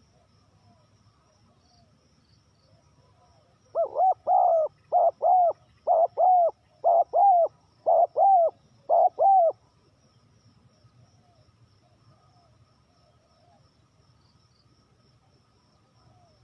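Spotted dove cooing: starting about four seconds in, a loud run of about a dozen short hollow coos, some in pairs, lasting about six seconds. Fainter coos from other doves and a steady high insect trill go on behind it.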